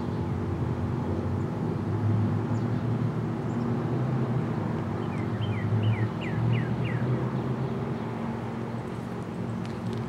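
Steady low drone of road traffic and engines. About five seconds in, a songbird sings a quick run of about five falling whistled notes, and there are a few faint high chirps; the siren is not sounding.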